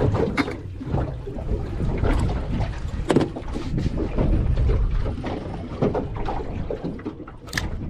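Wind buffeting the microphone and water slapping against the hull of a small fishing boat, with a few sharp knocks, the loudest about three seconds in.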